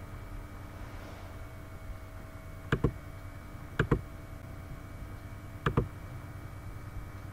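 Computer mouse clicked three times, each a quick double click, sharp and close to the microphone, over a steady low background hum.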